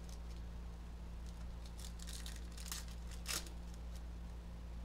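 Hockey trading cards being leafed through by hand, giving a few faint card flicks over a steady low electrical hum.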